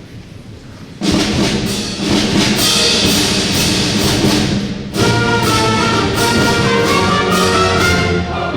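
Military service-song medley played by brass and orchestra with timpani, starting abruptly about a second in and moving into a new section about five seconds in.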